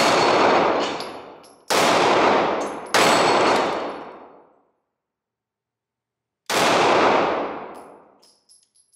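Four shots from a Ruger LC9s compact 9mm pistol, fired at uneven intervals. The third comes close after the second, and the last follows a pause of several seconds. Each shot is followed by a long echo.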